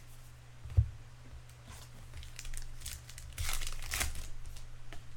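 A baseball card pack wrapper being torn open and crinkled, loudest about three and a half seconds in, after a single knock about a second in.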